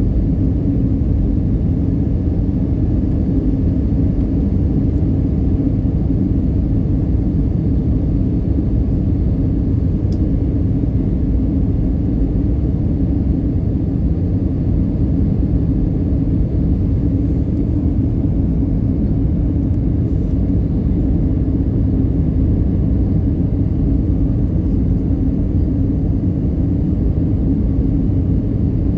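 Steady cabin noise inside an Airbus A320-214 on approach: the low rumble of airflow and its CFM56 turbofan engines, with a steady hum running through it.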